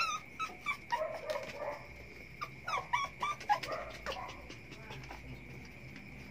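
Puppies whimpering and yipping in a string of short, high-pitched cries, with a faint steady high tone behind them.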